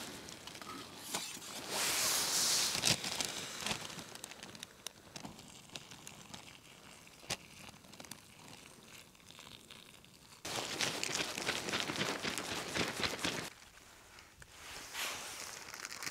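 Crinkling and rustling of a plastic food bag, with light knocks and clicks of a metal camping pot, in bursts with quieter gaps between.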